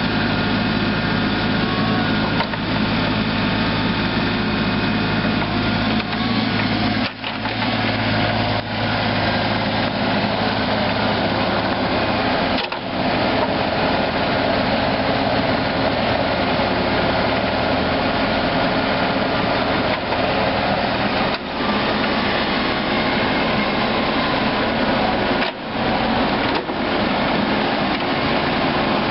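Kubota KX91-3 mini excavator's three-cylinder diesel engine running steadily. The sound drops out for a moment a few times.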